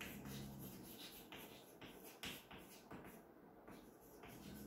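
Chalk writing on a blackboard: a faint, quick series of short scratching strokes and taps as a word is written.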